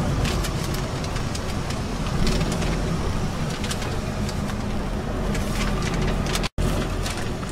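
Lorry cab interior while driving slowly: a steady low engine rumble and road noise, with frequent light clicks from the cab. The sound cuts out completely for a split second near the end.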